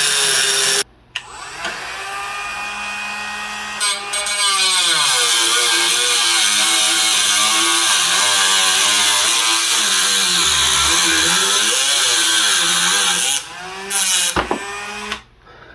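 Dremel rotary tool with a metal cut-off disc grinding through a steel knife blade held in a vise: a loud, high grinding whine whose pitch wavers as the motor slows and speeds under the load. It eases off sharply about a second in and runs quieter for a few seconds. It then cuts hard again, and near the end it falls away in a few short bursts and stops.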